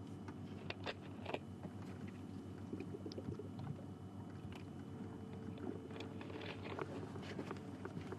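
Safari vehicle's engine running steadily with a low hum, with scattered sharp clicks and knocks over it; the loudest is about a second in.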